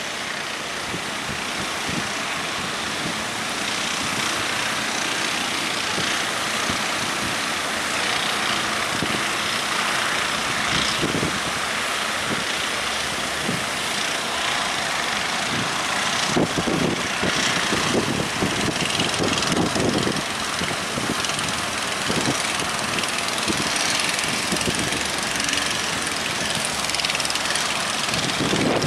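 Strong wind and heavy surf making a steady rushing noise, with heavier low rumbles about two-thirds of the way through.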